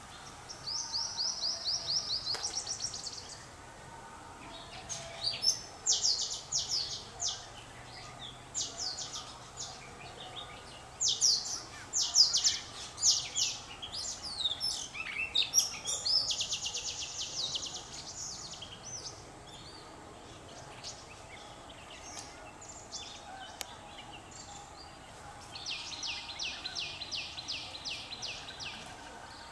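High, rapid chirping trills: runs of sharp chip notes, about ten a second, repeated in roughly six bouts with pauses between.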